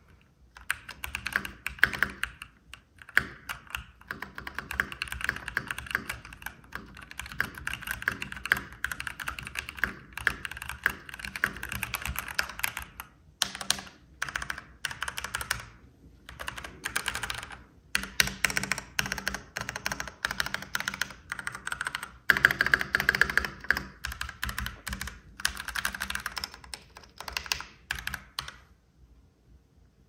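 Typing on a Keychron V1 75% mechanical keyboard with a plastic (ABS) case: fast runs of keystroke clacks with a few brief pauses, a keyboard sound test.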